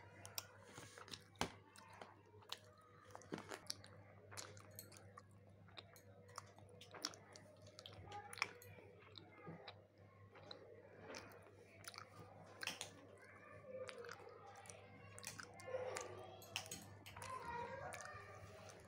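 Baby mouthing and gumming a small plastic earbuds case: soft wet smacking and sucking with scattered little clicks of plastic. A few soft baby vocal sounds come in near the end.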